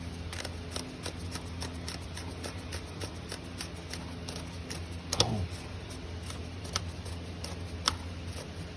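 Ratchet wrench clicking in a steady run of short strokes, loosening the oil filter housing cap on the engine, with a louder knock a little past five seconds in. A low steady hum runs underneath.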